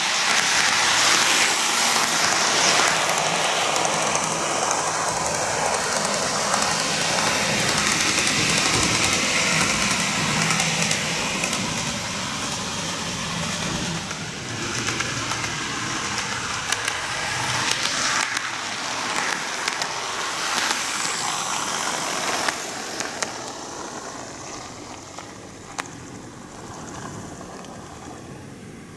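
Greenmax Kintetsu 12410 series N-gauge model train running on plastic track: a steady rushing rumble of motor and wheels, loudest as it passes close, fading after about twenty seconds, with a few sharp clicks in the later part.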